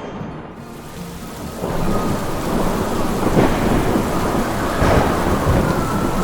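Heavy rain with thunder rumbling, swelling louder about a second and a half in, with two stronger rumbles in the middle and toward the end.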